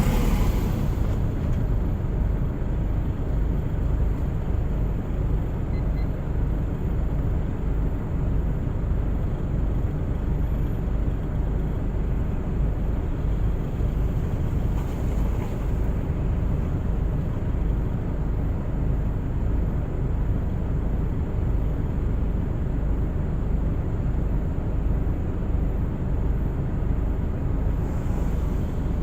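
Steady low rumble of a car driving on a winter road: engine and tyre noise. Brief swells of louder hiss come at the start, about halfway, and near the end.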